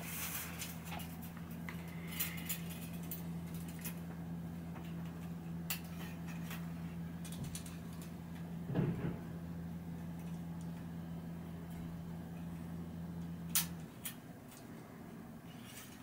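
Bicycle spokes clicking and ticking against each other and the rim as they are threaded into a 36-spoke front wheel being laced, with a louder knock about nine seconds in. A steady low hum runs underneath and stops about fourteen seconds in.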